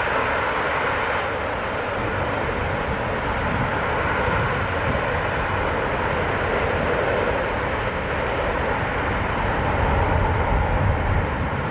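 Boeing C-17 Globemaster III's four Pratt & Whitney F117 turbofan engines running on the ground, a steady rushing jet noise with a low rumble, as the transport backs itself up under reverse thrust. The noise swells a little about ten seconds in.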